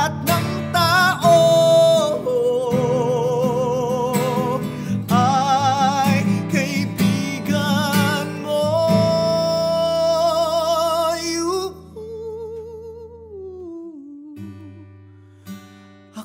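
A man singing with strong vibrato, accompanying himself on a strummed acoustic guitar. About twelve seconds in the playing drops back and the voice slides down on a long, quieter held note.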